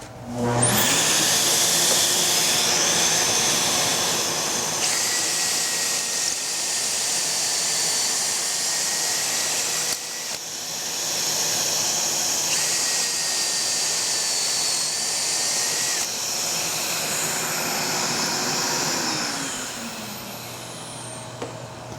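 Shop vacuum hooked to a pocket hole jig whining up to speed and running, while a drill with a stepped pocket-hole bit bores two holes, one after the other, each adding a steady higher whine for a few seconds. Near the end the vacuum is switched off and winds down.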